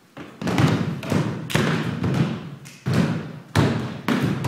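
A group of actors making heavy thumps on a wooden floor as they act out a forceful 'smash' gesture: a run of sudden thumps, nearly two a second, each with a short ringing tail.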